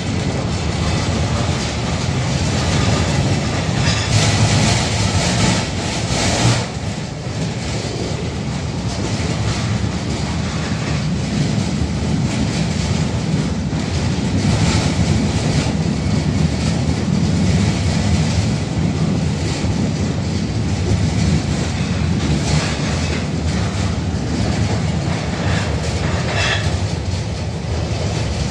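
A 71-605A (KTM-5) tram running along the line, heard from inside the passenger car: a steady low drone of motors and wheels on the rails, with brief clatters several times.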